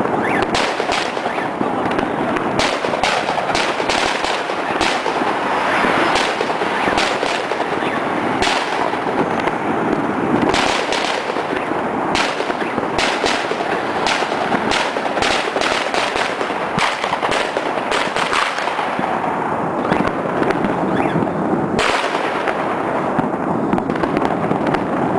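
Lunar New Year fireworks and firecrackers going off continuously: a dense crackle of firecrackers with many sharp bangs at irregular intervals.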